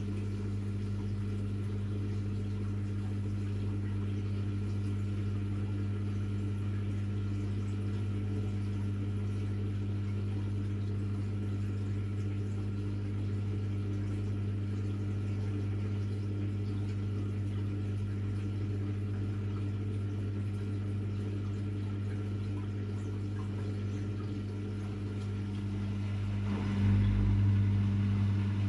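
Privileg 5020 front-loading washing machine running mid-cycle with a steady low hum. It grows louder with a couple of low pulses near the end.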